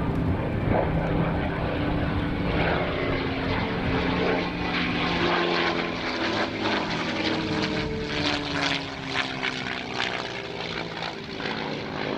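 P-51D Mustang's Packard-built Merlin V12 engine running as the fighter flies by. Its note falls steadily in pitch over the second half.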